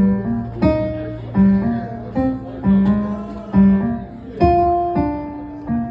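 Acoustic guitar music: single plucked notes, each ringing out, struck about every three-quarters of a second over a steady low tone.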